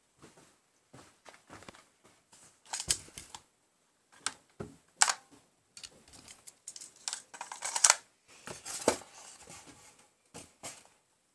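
Handling noises from a polystyrene foam packaging tray being moved about on a table: irregular clicks, knocks and scratchy scrapes, with the loudest cluster of scrapes a little past the middle.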